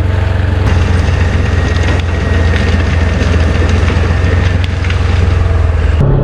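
A 200 hp crawler bulldozer's diesel engine running steadily with a deep hum, with scattered sharp cracks and clatter over it. The sound changes abruptly near the end.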